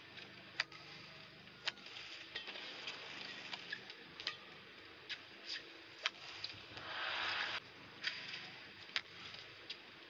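Badminton rally: sharp clicks of rackets striking the shuttlecock roughly once a second, over faint arena background. About seven seconds in, a short burst of crowd clapping cuts off suddenly.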